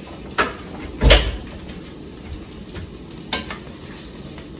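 Green peppers and onions sizzling in olive oil in a frying pan. A few sharp clicks sound over the sizzle, and the loudest, about a second in, is a knock with a low thump.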